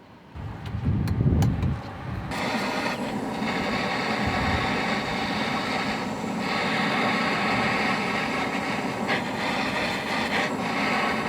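A car engine running steadily, after a short low rumble in the first two seconds.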